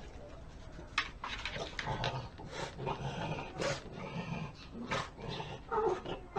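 Small black dog making short low-pitched growling sounds in bouts while pawing at a wooden door, with a few sharp scrapes of its claws on the wood.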